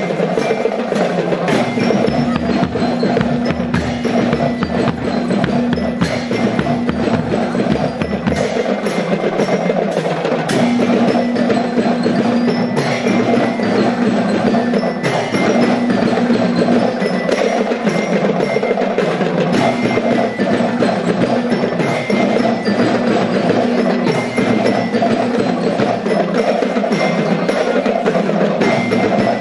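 Marching band playing: a dense, fast drum rhythm with held pitched notes over it.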